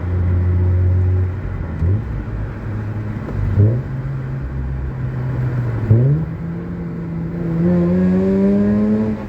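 Mazda RX-8's Renesis rotary engine running while driven, with three quick throttle blips about 2, 3.5 and 6 seconds in, each leaving the revs a step higher, as rev-matched downshifts. Near the end it revs up steadily under acceleration.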